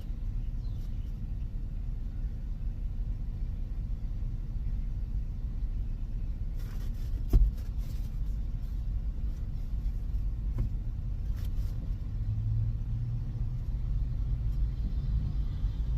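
Steady low rumble of a car, with a single sharp thump about seven seconds in.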